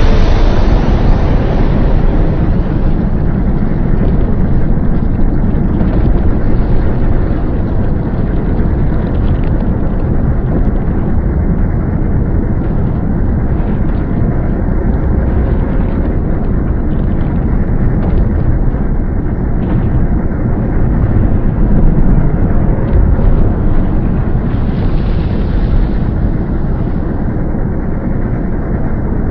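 Sound effect for a giant monster: a loud, dense, low rumble like a blast or eruption, set off suddenly and held without a break, swelling slightly near the end.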